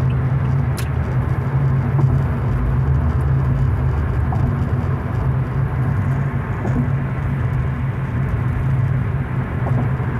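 A car driving at highway speed, heard from inside the cabin: a steady drone of tyres on the road and the engine, with a strong low hum.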